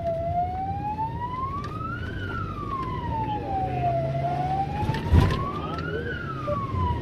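Emergency-vehicle siren wailing slowly up and down, about four seconds per rise and fall, heard from inside the moving vehicle's cabin over engine and road rumble. A short thump comes about five seconds in.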